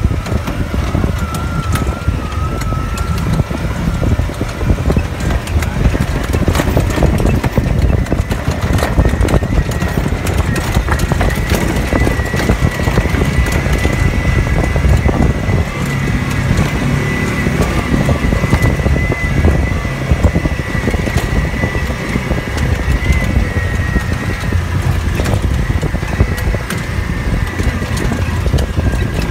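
A vehicle driving along a rough dirt track, heard from on board: a steady engine drone with a thin whine that climbs in pitch about ten seconds in and then holds, under frequent rattles and knocks from the bumps.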